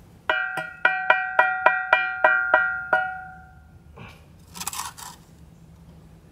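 A steel brick trowel's handle tapping a brick down into its mortar bed to bring it level with the course: about ten quick taps, roughly four a second, each with the trowel blade ringing. About four and a half seconds in comes a short scrape of the trowel against the brick.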